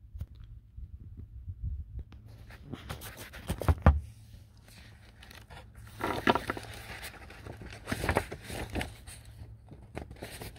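Handling noise of a phone camera: cloth rustling and scraping over the microphone, with several knocks, the loudest about four seconds in, over a low steady hum.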